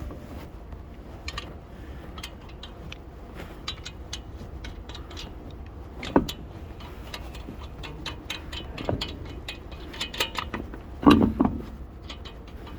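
Tools and wheel hardware at work during a car tyre change: a steady run of small metallic clicks and ticks, with louder clanks about halfway through and again near the end.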